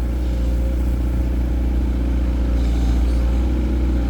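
Dump truck's diesel engine running at a steady speed, a continuous low drone.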